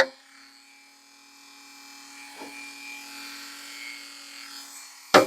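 Dremel rotary tool running on its low speed setting, a faint steady hum that grows slightly louder. A sharp knock comes near the end.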